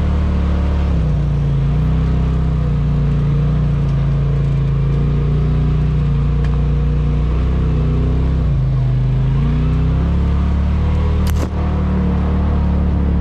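Polaris RZR Pro XP 4 side-by-side's turbocharged twin-cylinder engine running under way, its pitch rising and falling several times as the throttle and load change. A single sharp knock comes near the end.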